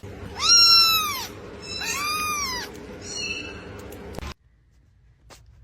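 Domestic cat meowing three times, each call rising then falling in pitch, the first the loudest. The sound cuts off suddenly after the third call.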